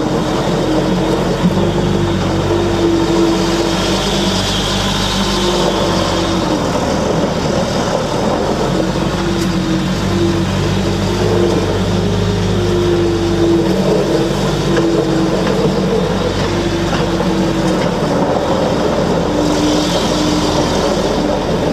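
Case 430 skid steer loader's diesel engine running steadily, its pitch rising and falling a little as the machine is worked, with a brief hiss twice.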